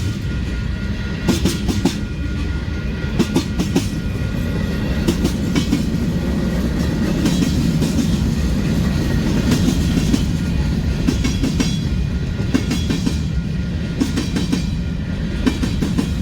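Long Union Pacific freight train's cars rolling past over a steady rumble, with clusters of wheel clacks over the rail joints about every two seconds.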